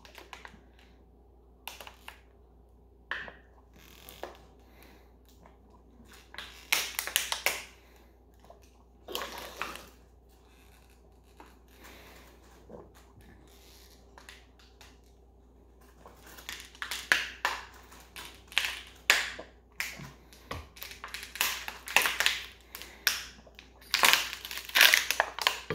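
Thin plastic 16.9 fl oz water bottle crinkling and popping as it is drained in long swigs, the plastic flexing as the water leaves it. The crackles come only now and then at first, then thick and fast from about two-thirds of the way through, loudest near the end.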